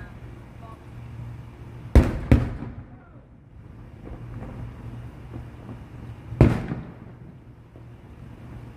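Fireworks going off: two sharp bangs in quick succession about two seconds in, and a third about four seconds later, each dying away briefly.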